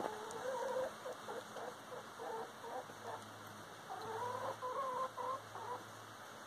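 Chickens clucking in two runs of calls: one over the first three seconds, another from about four seconds in until near the end.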